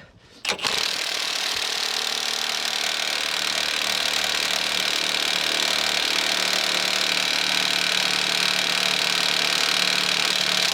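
Cordless impact wrench hammering continuously on a stuck bolt, a steady loud power-tool run that fails to break the fastener loose.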